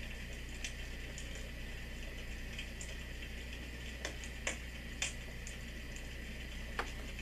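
Homedics Sound Spa clock radio playing its recorded 'Fireside' nature sound through its speaker: a crackling fire, with scattered sharp pops over a steady low hum.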